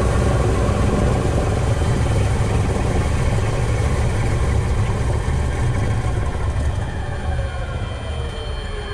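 Douglas DC-6's number 1 and 2 Pratt & Whitney R-2800 radial engines running at low power, heard from inside the cockpit. From about six seconds in the pitch starts to fall and the sound fades as the engines wind down toward shutdown.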